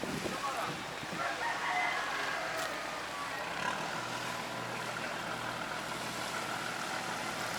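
A rooster crowing over steady outdoor background noise, and a low steady hum comes in about halfway through.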